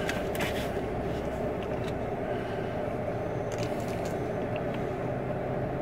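Steady low hum of a running car heard from inside the cabin, with a few faint clicks and rustles over it.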